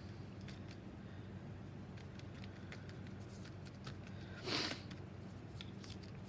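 Faint paintbrush strokes on wet watercolor paper: light brushing with scattered small ticks, and one louder, short scrape about four and a half seconds in, over a low steady room hum.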